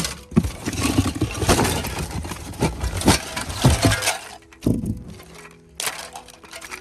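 Crunching and clinking of broken glass and hard debris, with many sharp knocks, for about four seconds, then it stops and background music carries on.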